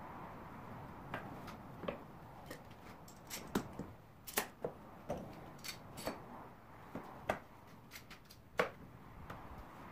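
Irregular sharp clicks and light knocks of bar clamps being tightened and set against wooden window pieces on a workbench.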